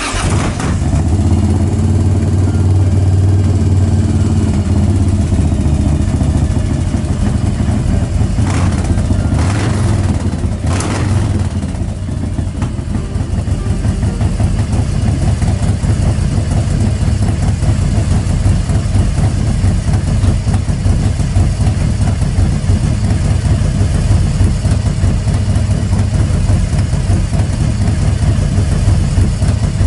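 1993 Harley-Davidson FXR Super Glide's S&S 111-cubic-inch V-twin, breathing through a Supertrapp 2-into-1 exhaust, starts abruptly and runs loud. It is briefly revved twice around nine to eleven seconds in, then idles steadily.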